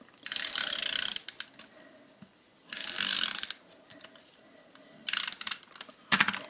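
Stampin' Up Snail adhesive tape runner drawn across paper in three strokes of about a second each, laying down adhesive, with a few clicks near the end.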